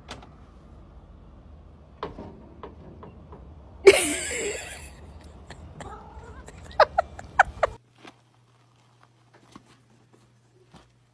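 A cat meowing: one loud meow about four seconds in, then several short, sharp meows as it comes closer. After that, near silence with a faint steady hum.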